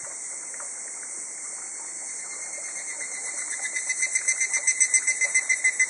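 Higurashi (evening cicada, Tanna japonensis) calling: a rapid run of pulses, about five or six a second, that swells in from about halfway through and is loudest near the end. Under it is a steady, high-pitched hiss.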